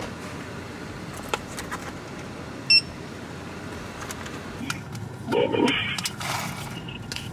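Small clicks and rattles of things being handled in a parked car, with one short high beep a little under three seconds in and a brief louder muffled sound about five seconds in.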